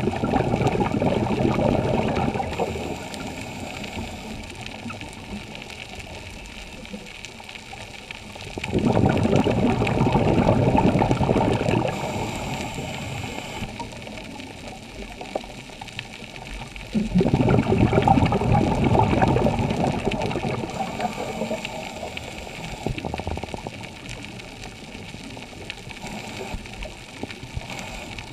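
Underwater scuba breathing: exhaled bubbles from a regulator rumbling up in three bursts, at the start, about nine seconds in and about seventeen seconds in, each fading away over several seconds. A faint hiss comes in the quieter stretches between them.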